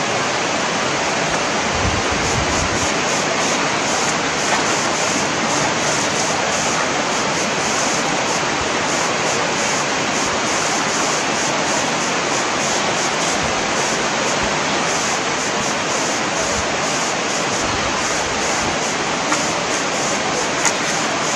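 Steady rushing of flowing water, an even hiss with no breaks, with a couple of faint knocks near the end.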